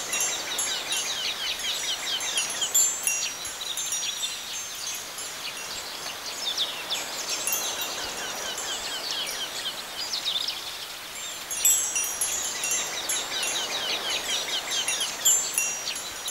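Wind chimes tinkling: a dense, continuous run of short high ringing notes, with louder clusters now and then.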